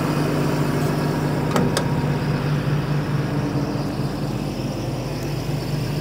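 Caterpillar 320D excavator's six-cylinder Cat C6.4 diesel engine idling steadily, with two light clicks about one and a half seconds in.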